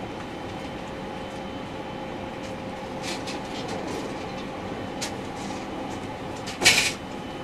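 JR Central 313 series electric train heard from on board: a steady hum with a few light clicks, and one brief loud clatter about a second before the end.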